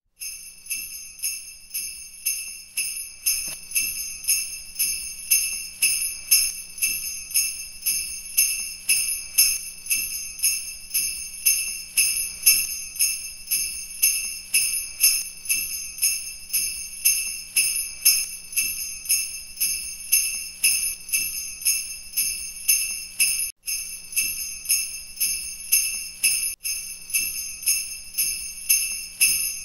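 Sleigh bells shaken in a steady rhythm, about two shakes a second, over a faint low held tone; the sound drops out for an instant twice in the last third.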